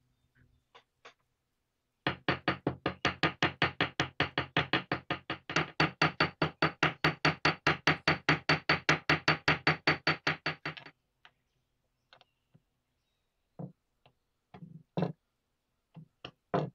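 Steel hammer striking a small metal disc on a bench vise's anvil in a fast, even run of about five blows a second for roughly nine seconds. A few separate knocks follow near the end.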